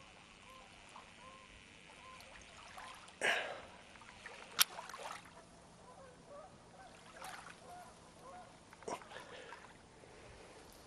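Faint honking of geese, a steady scatter of short calls. A few sharp knocks and brief rushes of noise cut across it, the loudest a click about four and a half seconds in.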